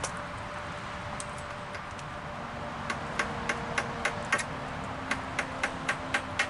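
Steady rain with sharp, irregular taps of drops striking, a few a second from about halfway through.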